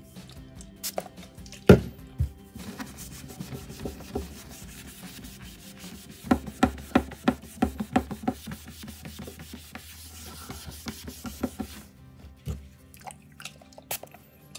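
A wipe dampened with perfume scrubbed back and forth over a wooden tabletop to rub out a white water or alcohol stain, with a few knocks and a quick run of strokes, about four or five a second, in the middle.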